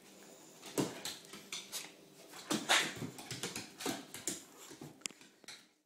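Small dog spinning on a wooden floor: a busy run of quick clicks and scuffs from its claws on the boards, mixed with short vocal sounds from the dog. The sound cuts off suddenly near the end.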